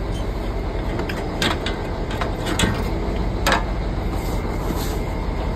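Steady low rumble of construction machinery running, with a few sharp clicks and knocks scattered through it.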